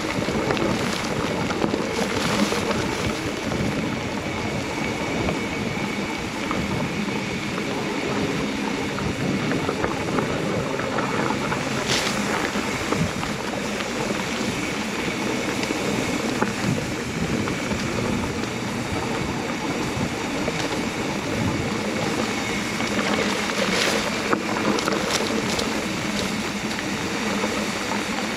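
Mountain bike ride on a dry dirt singletrack: a steady rush of wind on the microphone mixed with tyre noise on the dirt, with a few short knocks along the way.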